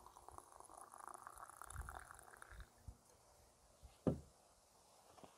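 Hot water poured from a thermos into a yerba mate gourd, the pitch of the filling rising steadily until the pour stops about halfway through. Then a single knock as the thermos is set down on the wooden deck.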